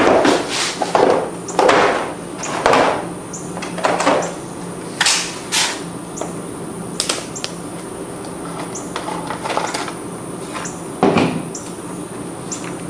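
Air cleaner cover being worked loose and taken off a Briggs & Stratton mower engine with a flat-tip screwdriver: a series of short knocks and scrapes, several in quick succession over the first few seconds and one more near the end.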